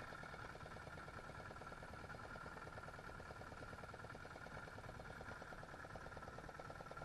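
An engine idling faintly and steadily, with a fast, even pulse.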